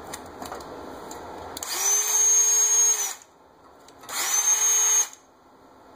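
Ridgid 18 V cordless drill running free twice, first for about a second and a half, then for about a second; each run spins up quickly to a steady whine and stops. It is powered by a repaired lithium battery, not yet fully charged, that before the repair would not run the drill at all.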